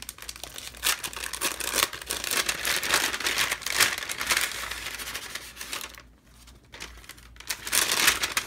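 Crinkling and rustling of a pink patterned packaging bag as sticker sheets are pulled out of it. The crinkling is dense for about six seconds, eases off briefly, then comes back in a burst near the end.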